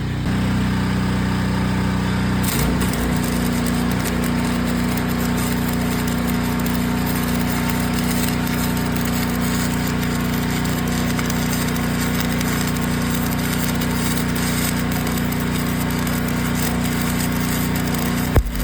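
Gas-engine-driven welder running, its engine speeding up about two and a half seconds in as the arc is struck, with the welding arc crackling steadily while a steel bracket is welded solid. The arc stops abruptly near the end.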